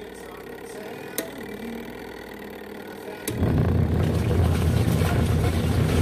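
Kuppet portable washing machine's wash motor and pulsator: a quieter pause with a light click about a second in, then a sharper click about three seconds in as the motor starts again, churning the water and clothes with a loud low rumble. The pause and restart are the wash cycle stopping and reversing the spin direction.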